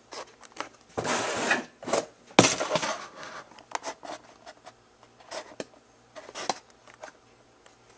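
Rustling and scraping of a paper mailer being handled and torn open by hand: two rough bursts about one and two and a half seconds in, then scattered light clicks and rustles.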